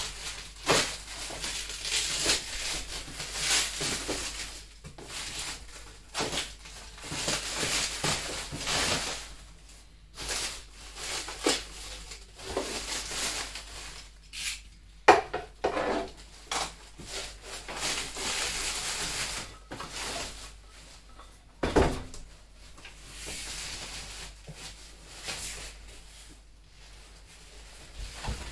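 Plastic wrapping film being torn and crumpled off cardboard boxes, with cardboard scraping and rustling and a few sharp knocks as the boxes are handled.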